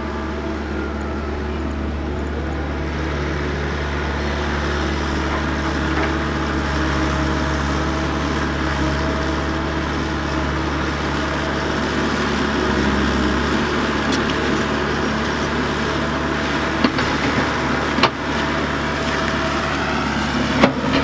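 Komatsu PC120 hydraulic excavator's diesel engine running steadily under working load as the machine digs and swings. A few sharp knocks come near the end.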